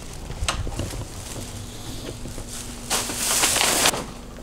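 A door latch clicks as a doorknob is turned and a door is opened, with light knocks and handling noises after it. About three seconds in comes a loud rustle lasting about a second, then a refrigerator door is pulled open. A faint steady hum sets in about a second in.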